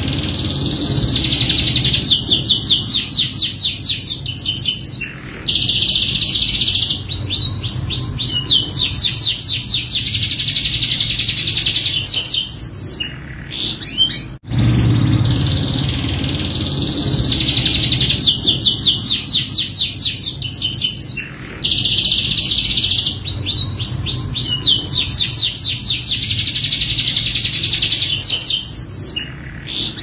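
Domestic canary singing a long song of fast trills and rolls, broken by short pauses, over a faint low hum. About halfway through the song cuts off abruptly and the same passage starts again, as a looped recording.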